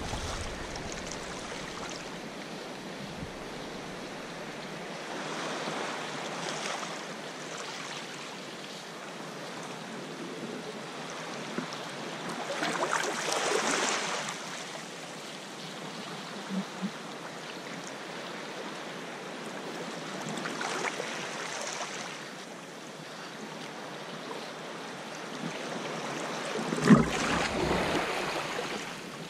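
Sea water sloshing and small waves washing and breaking against rocky ledges close by, swelling louder in four surges several seconds apart.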